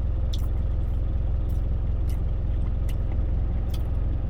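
Steady low engine and road rumble inside a moving truck's cab, with a few faint clicks scattered through it.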